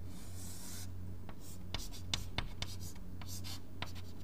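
Chalk writing on a chalkboard: a scratchy stroke in the first second, then a run of short, sharp taps and ticks as figures are written. A steady low hum runs underneath.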